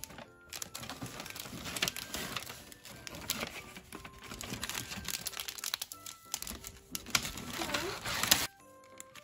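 Kraft paper gift bag and sweet wrappers rustling and crinkling as sweets are packed into the bag, over soft background music. The rustling stops abruptly near the end.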